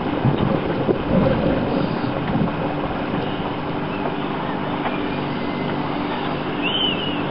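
Boat engine running with a steady drone, mixed with wind and water noise as the yacht moves along. A brief high chirp comes near the end.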